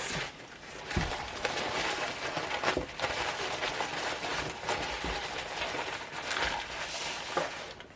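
Wrapping paper crinkling and rustling, with small ticks and taps, as shakers are handled and unwrapped.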